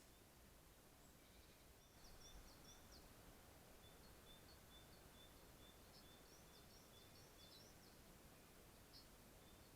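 Near silence with faint birdsong: clusters of short, high chirps and a string of thin, evenly spaced high notes over a background hiss, a little louder from about two seconds in.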